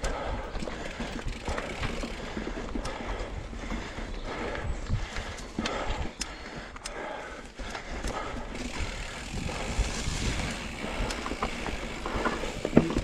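Electric mountain bike rattling and clattering over a rough trail: irregular knocks and clicks from the frame, chain and tyres striking stones, with wind rumble on the microphone. There is one sharper knock near the end.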